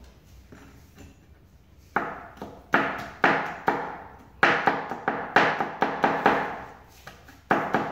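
Large kitchen knife chopping garlic cloves on a wooden cutting board: a run of sharp knocks, about two a second, starting about two seconds in.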